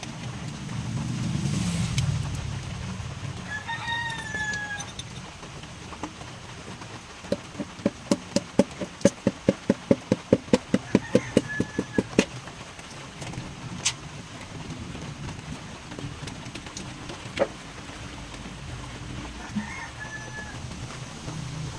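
Chickens calling, with one longer falling call a few seconds in and short calls later. In the middle comes a rapid run of sharp taps, about five a second, lasting about five seconds.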